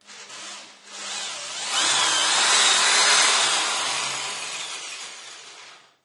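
Power drill running: the sound builds over the first two seconds to a loud whir with a high wavering whine, then gradually dies away and stops just before the end.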